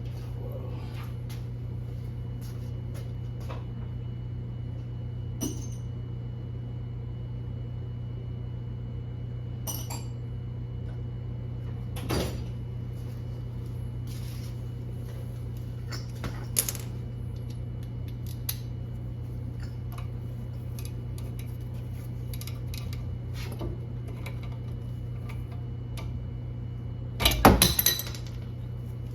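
Metal hand tools and parts clinking and knocking now and then, with a loud cluster of clanks near the end, over a steady low hum.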